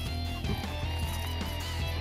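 Background music: an instrumental track with electric guitar over a steady beat and bass.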